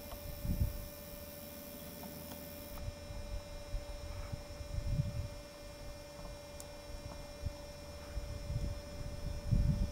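A steady mid-pitched electrical hum, with low wind rumble on the microphone that swells about half a second in, around the middle and again near the end.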